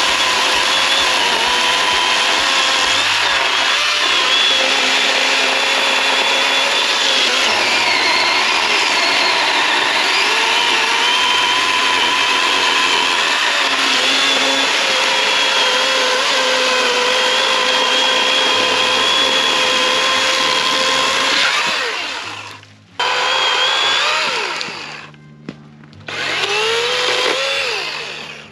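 Greenworks Pro 80V cordless chainsaw's electric motor whining under load as it cuts wood, steady for about twenty seconds. Then it lets off and is triggered again in short spurts, its pitch winding up and down.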